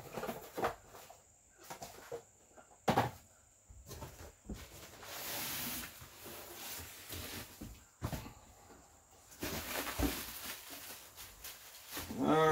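Packaging and small parts being handled while a box is unpacked: a few sharp knocks and thunks, with a couple of stretches of rustling.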